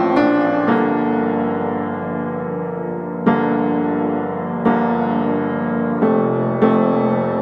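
Slow background keyboard music: chords struck every one to three seconds, each left ringing and slowly fading.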